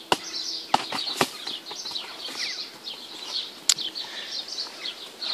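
Football being kicked up off the foot: three sharp thuds about half a second apart near the start, then one more thud a couple of seconds later. Birds chirp throughout.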